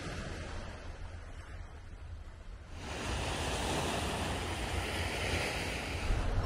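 Sea waves washing onto a stony shore, with wind rumbling on the microphone. The surf hiss gets louder about three seconds in.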